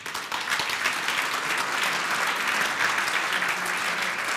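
Audience applauding, the clapping starting suddenly and then holding steady.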